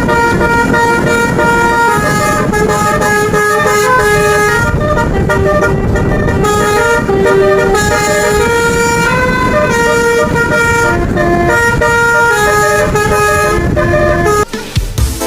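Bus telolet horn, a set of air-horn trumpets, playing a melody of held notes that step up and down over a steady rumble. The tune breaks off shortly before the end.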